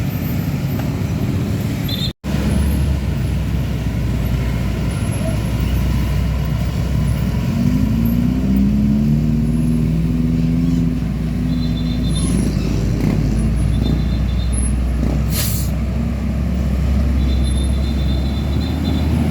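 Heavy truck traffic on a road, diesel engines running. About a third of the way in, one engine's note rises and holds for a few seconds. A brief hiss comes about three-quarters of the way through.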